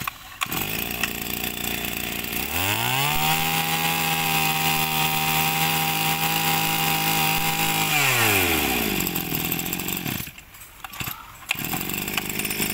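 Tanaka 21 cc two-stroke brush cutter engine running. It idles, is revved up to a steady high pitch about two and a half seconds in, holds there for about five seconds, then drops back to idle. Near the end it dips briefly and runs on.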